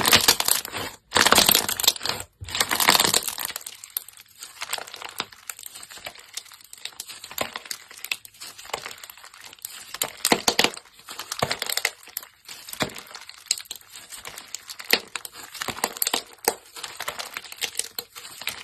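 Slime being squeezed and pressed, a dense crackling of small pops and clicks. It is loudest for the first three seconds or so, then thins to sparser, quieter clicks.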